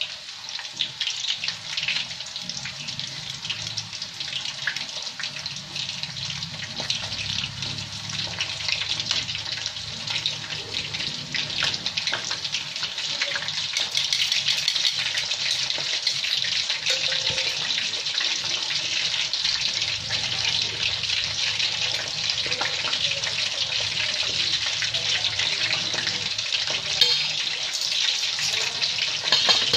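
Battered chicken pieces deep-frying in a pot of hot oil: a steady crackling sizzle, slightly louder in the second half.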